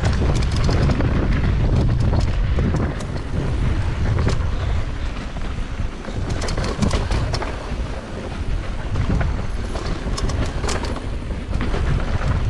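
Mountain bike descending a rough dirt trail at speed: wind buffets the microphone in a loud, steady rumble over the knobby tyres rolling on dirt and loose stones. Sharp clicks and rattles from the bike over the rough ground come throughout, thickest past the middle.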